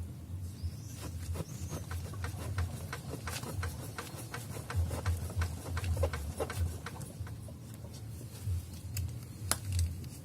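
Ford Mondeo Mk4 shock absorber strut knocking: a rapid, irregular run of sharp knocks over a low steady hum, thickest in the middle with a single loud knock near the end. The knocking is the sign of a faulty strut.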